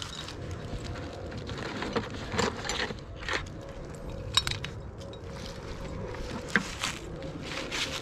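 Trapping gear being rummaged by a gloved hand in a plastic bucket, with dry leaves crackling underfoot. It comes as a series of short rustles and knocks, with a sharp click about four and a half seconds in and another about six and a half seconds in.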